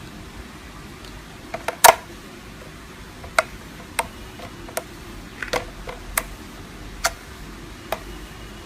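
Slime being poked and pressed, giving off a series of sharp popping clicks at irregular intervals, about a dozen in all, the loudest about two seconds in.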